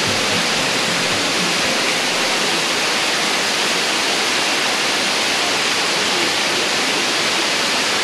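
Virgin Waterfall pouring down its rock face into the pool below: a steady, loud, unbroken rush of falling water.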